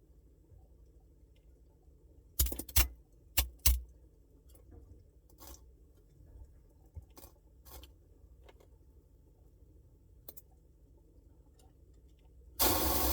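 Samsung Bespoke refrigerator humming low and steady, with four loud sharp cracks a couple of seconds in, a few fainter ticks after, and a burst of hissing noise near the end.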